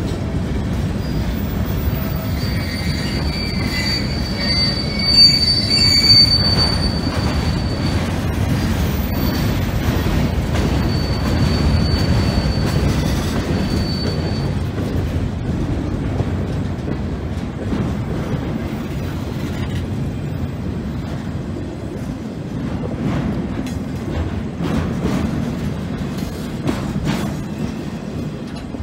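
Freight train cars, mostly empty flat cars, rolling past over a grade crossing with a steady low rumble. Wheels squeal in a thin high tone for the first half, and there are a couple of louder knocks about five seconds in.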